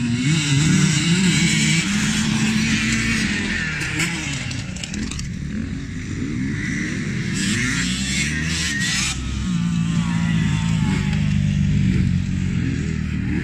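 Several motocross dirt bikes riding around a dirt track, their engines revving up and down as they accelerate and ease off through the turns.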